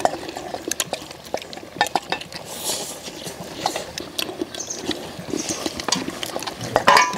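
Eating sounds from a pot of pork back-bone stew: slurping of broth and chewing, with steel chopsticks, tongs and spoons clicking against stainless-steel bowls and the wide pan. A brief high-pitched sound stands out near the end.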